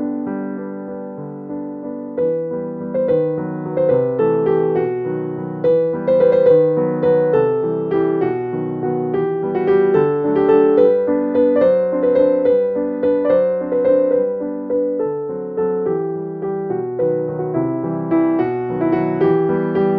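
Background music: a gentle piano or electric-piano tune with evenly struck notes.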